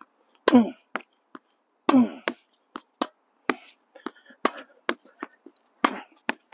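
Tennis ball being rallied against a warped wooden practice wall: an irregular run of sharp pops from the ball on the racket strings, against the wooden backboard and bouncing on the hard court, two or three a second. The two loudest hits are each followed by a short falling tone.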